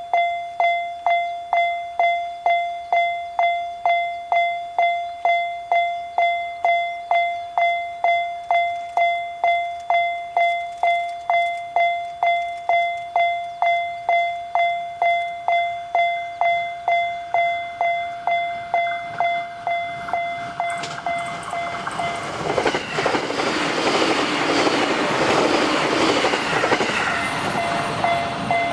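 Japanese level-crossing warning bell ringing its steady electronic "kan-kan" strike, a little under two strikes a second. About twenty seconds in a JR Sobu Line train passes over the crossing, its rushing wheel and running noise drowning out the bell, which is heard clearly again near the end.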